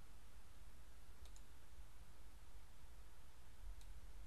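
Faint room tone with a low hum and hiss, and a few soft computer mouse clicks: a quick pair about a second in and one more near the end.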